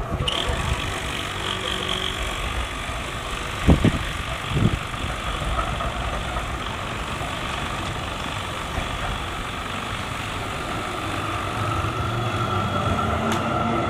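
Street traffic noise with electric trams running along a city road, one tram drawing close and growing louder near the end. Two short thumps come about four seconds in.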